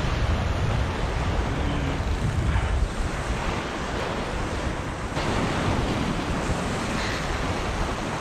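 Ocean waves washing, with wind buffeting the microphone in a low rumble over the first few seconds; a fresh wash of water swells about five seconds in.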